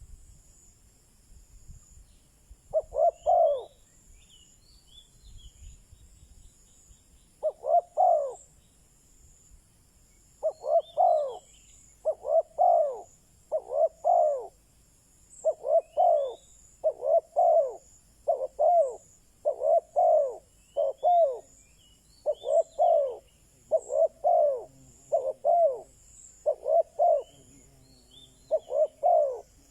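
Spotted dove cooing over and over, each call a short phrase of a few coo notes. The calls come a few seconds apart at first, then about once a second from roughly ten seconds in. Faint chirps of small birds sound higher up.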